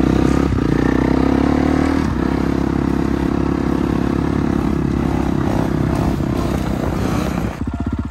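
Four-stroke 450 dirt bike engine running while riding along a paved path, its pitch climbing over the first couple of seconds and then holding steady.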